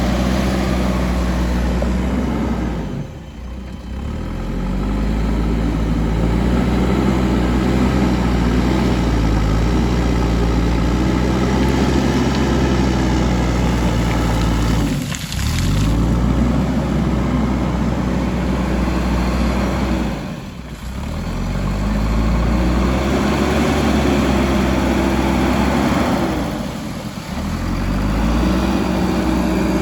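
Diesel engine of a JCB backhoe loader running hard while digging, its pitch rising and falling as it revs up and down, with the sound dipping briefly four times.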